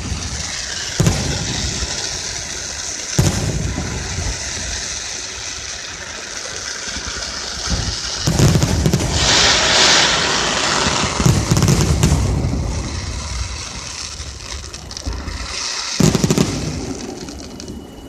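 Aerial fireworks bursting: a series of booming shell bursts, with the loudest about a second in, at three seconds, around eight to nine seconds, around eleven to twelve seconds and at sixteen seconds. A continuous crackling and hissing of burning stars runs between the bursts and is densest in the middle.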